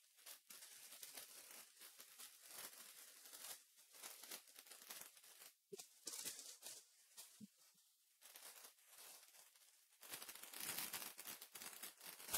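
Faint crinkling and tearing of foil Topps Chrome trading-card pack wrappers as the packs are handled and torn open, a little louder near the end.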